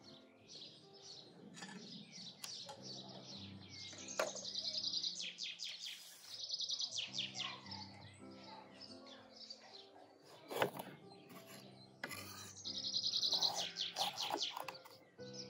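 Songbirds chirping and trilling, with fast high trills loudest twice, over soft instrumental background music. A single sharp knock about ten and a half seconds in.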